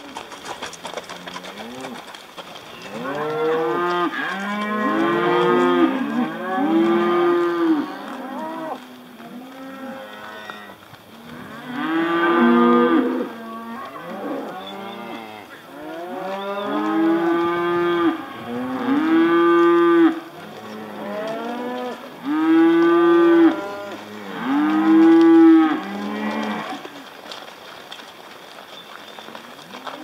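Herd of beef cattle bawling as they are driven along a road. Many long moos overlap one after another, with a quieter stretch near the end.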